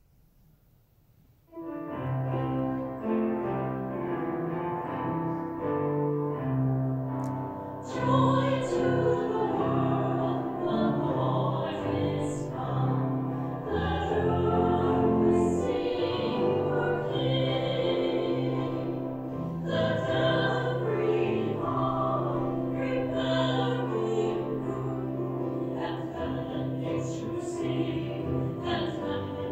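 Closing hymn after the dismissal at Mass. After a brief silence, piano and cello start an instrumental introduction about a second and a half in, and voices begin singing about eight seconds in.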